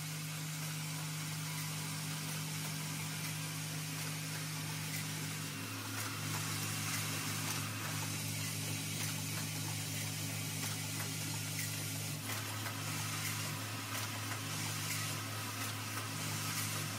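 Automatic lotion pump assembly machine running: a steady low mechanical hum, part of which cuts out briefly several times, over a hiss of compressed air and light clicking from its pneumatic actuators.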